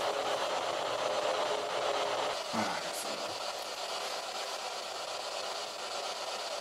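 A steady hiss with a faint hum runs throughout. About two and a half seconds in there is a brief, faint low murmur, and a short tick just after it.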